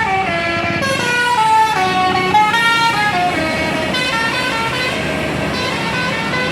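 Bus 'telolet basuri' multi-trumpet air horn playing a melody, its notes stepping down and then back up in quick succession. Engine and road noise grow under it near the end.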